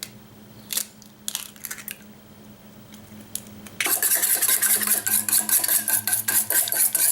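A few light knocks, then from about four seconds in an egg is whisked in a bowl: rapid, loud clinking and scraping strokes of the utensil against the bowl.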